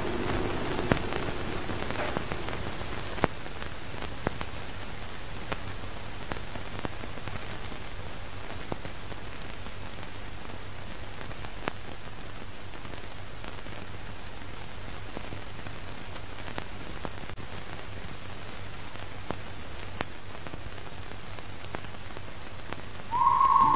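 Old-film or record crackle effect: a steady hiss with scattered clicks and pops and a faint low hum. Near the end a steady whistle-like tone starts.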